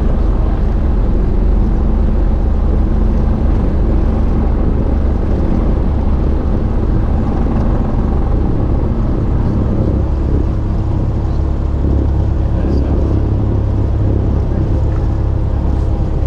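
Cessna 172's four-cylinder piston engine and propeller running at low power, a steady loud drone heard from inside the cabin as the plane rolls along the runway. The low drone shifts up a little about ten seconds in.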